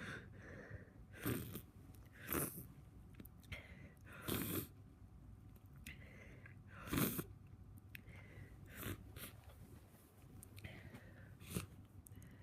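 A person with a head cold sniffing through a congested nose: about six short, sharp sniffs, a second or two apart.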